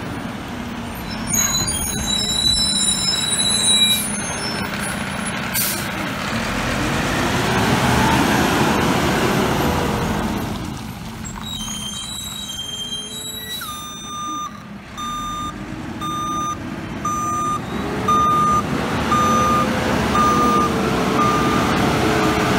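Front-loading garbage truck's diesel engine running and rising and falling in pitch as it drives, with a couple of short sharp noises about four and six seconds in. From about fourteen seconds in its reversing beeper sounds a steady series of beeps, a little more than one a second, as it backs up.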